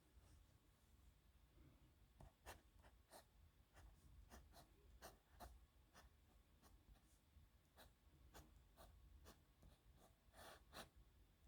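Faint pen scratching on paper in short, irregular strokes, starting about two seconds in, with one longer stroke near the end.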